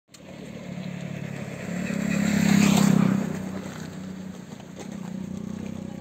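A motor vehicle's engine running with a steady low hum. It grows louder to a peak about halfway through, then eases off.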